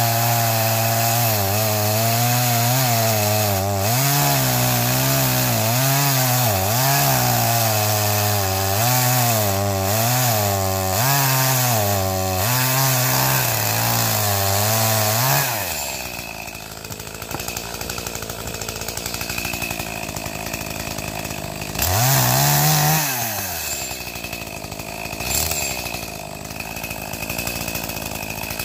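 Two-stroke chainsaw cutting wood, its engine speed rising and falling under load for about fifteen seconds. It then drops back to a lower, quieter running, with one short rev a few seconds later.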